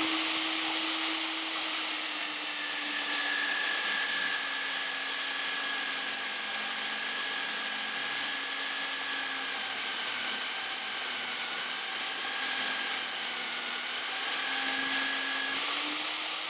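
Baileigh MD-3500 magnetic drill's electric motor running steadily with a high whine while drilling, its pitch dropping slightly a couple of seconds in.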